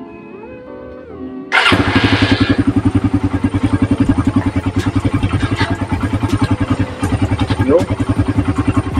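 Suzuki Raider 150's single-cylinder four-stroke engine is started about a second and a half in. It catches at once with a loud burst, then idles with a steady, rapid pulse.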